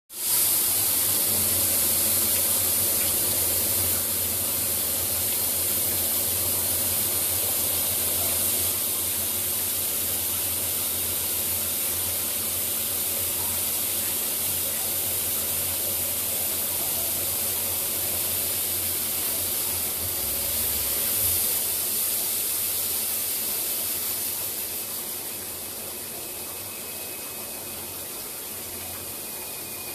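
Quench water spraying and hissing onto a steel shaft being induction surface-hardened on a CNC vertical hardening machine, over a low steady hum. The hiss drops noticeably about 25 seconds in.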